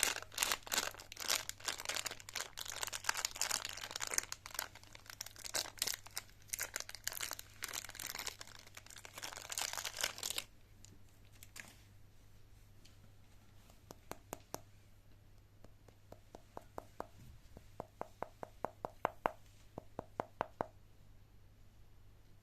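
Candy wrappers crinkling and tearing as they are handled, dense and busy for about ten seconds before stopping suddenly. Light clicks and taps follow, some in quick runs.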